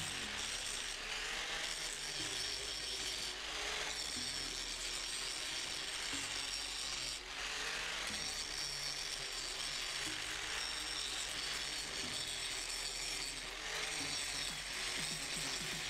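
Electric angle grinder grinding a steel weld, with a steady high grinding hiss of the disc on metal that briefly eases off about seven seconds in.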